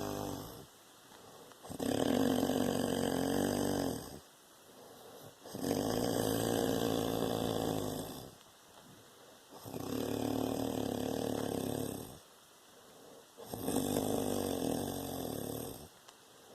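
A man snoring in a slow, regular rhythm: four long snores, each about two seconds, coming about every four seconds, with quieter breathing in between.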